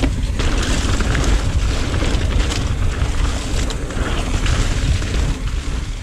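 Mountain bike rolling fast down a leaf-covered dirt singletrack: tire and trail noise under a heavy, deep rumble of wind on the camera's microphone. No freehub ticking is heard, since the Onyx sprag-clutch rear hub is silent.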